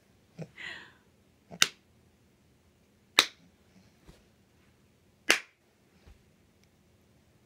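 Three sharp, loud hand claps, spaced about one and a half to two seconds apart, with a few fainter taps in between.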